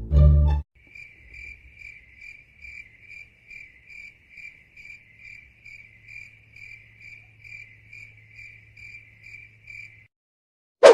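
Stock cricket-chirping sound effect: one cricket's high chirps, evenly spaced at about two a second over a faint low hum, stopping suddenly after about nine seconds. A short bit of plucked-string music ends just before it, and a sharp slap hits right at the end.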